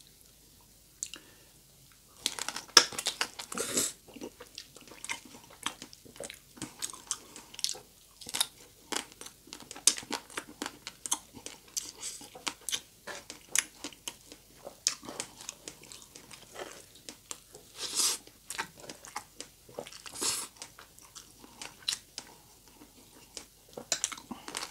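Crunching bite into crispy deep-fried pork belly (lechon kawali) about two seconds in, loud and crackly, followed by steady crunchy chewing of the crisp pork rind.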